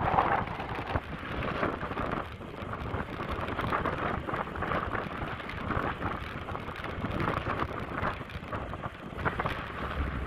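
Wind rushing and buffeting over the microphone of a moving motorcycle, an uneven noise that swells and dips, with no clear engine note.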